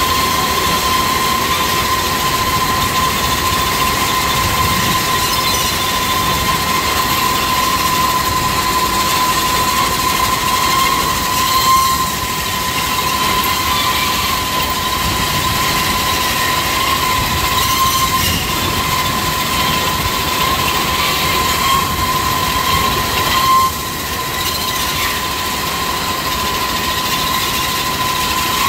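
Rice-loading conveyor machinery running steadily, with a constant high whine over a continuous rushing noise.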